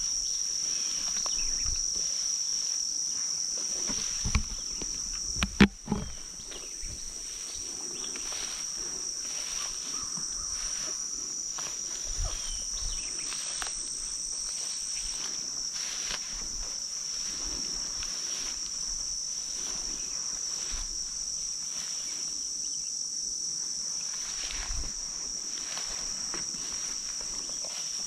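Steady, high-pitched insect chorus, with a single sudden loud sharp sound about five and a half seconds in.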